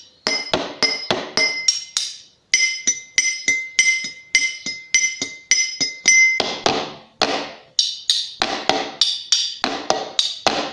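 Improvised percussion played on kitchen utensils and dishes: quick, even strikes, about three a second. For a stretch in the middle each strike rings with a bright, high metallic tone; later strikes are duller and lower, with a couple of brief pauses.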